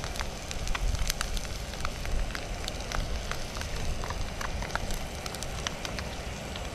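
Whitebait fritter sizzling in hot oil in a frying pan, with frequent sharp pops and crackles over a low steady rumble.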